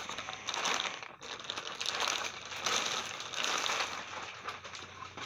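Clear plastic packaging crinkling and rustling in irregular bursts as a comforter is worked out of its bag, fading toward the end.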